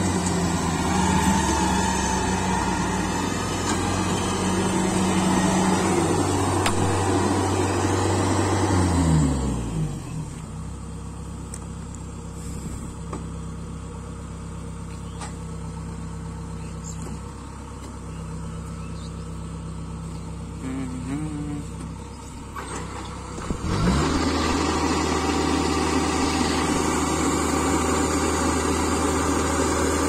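Kubota DC-68G combine harvester's diesel engine running at high speed, then throttling down about a third of the way in to a quieter, lower idle. About three-quarters of the way in it revs sharply back up to full speed to drive the grain-unloading auger.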